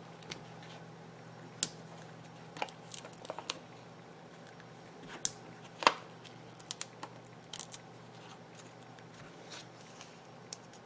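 Light paper handling: short scattered clicks, taps and small rustles as foam adhesive dots are peeled from their backing sheet and pressed onto cardstock strips, the sharpest click about six seconds in. A low steady hum runs underneath.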